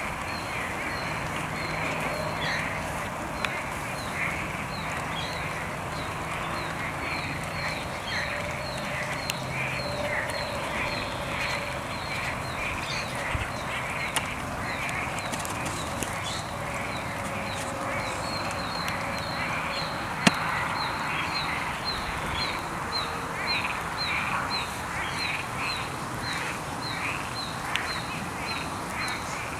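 Steady rain falling on a flooded pond and garden, with animal calls over it: a high chirp repeating about twice a second and scattered lower calls. One sharp tap about two-thirds of the way through.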